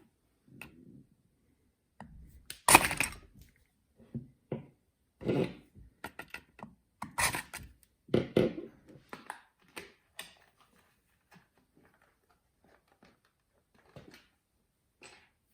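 Irregular knocks, thunks and short scrapes of a plastic wall socket faceplate being pushed and worked into position against the wall, its corner fouling a piece of plaster. The handling sounds grow sparse and faint near the end.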